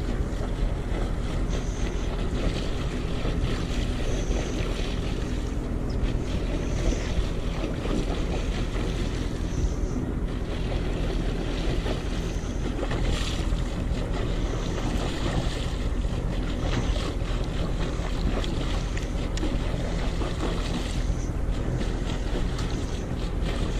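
Steady wind noise on the microphone, with a boat engine running low and steady underneath.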